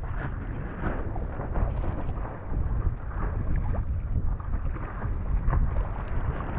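Heavy wind rumble on the microphone of an action camera mounted low on an inflatable paddleboard, with choppy waves splashing and slapping against the board.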